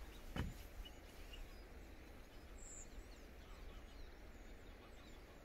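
Quiet outdoor ambience: a steady low rumble with faint, short high bird chirps now and then, and a single sharp knock about half a second in.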